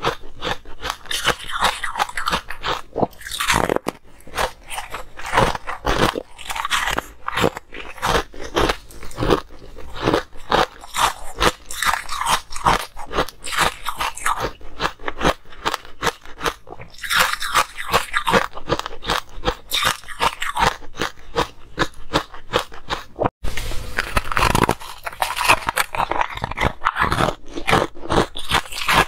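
Frozen ice cubes bitten and chewed close to the microphone: dense, irregular crunching of ice breaking between the teeth, with a brief break about three quarters of the way through.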